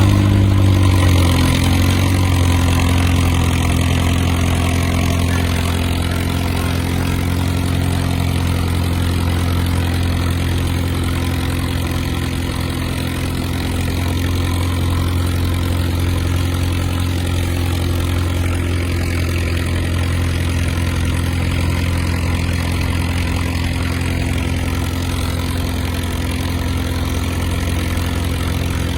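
Antique tractor engine running steadily at a low, even speed, its revs easing off slightly at the start and then holding.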